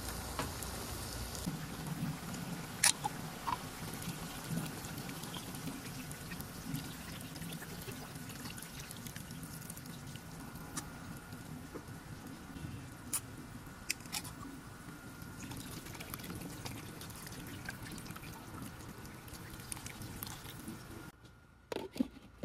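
Duck and yam pieces cooking in a stainless steel wok, a steady sizzling and bubbling as liquid is added, with a few sharp clicks of a utensil against the pan. Near the end a glass lid goes on with a clink and the cooking sound drops away.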